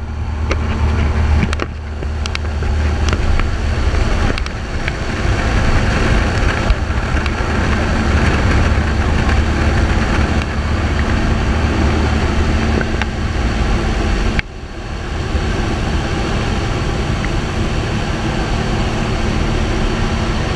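Single-engine light aircraft's piston engine and propeller droning steadily, heard from inside the cabin, over a steady rush of air and a few small knocks. The level drops sharply about fourteen seconds in, then builds back up.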